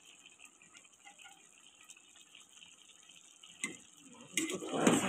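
Pot of rice and water boiling, a faint steady bubbling. About three and a half seconds in there is a click, then a louder burst of noise near the end.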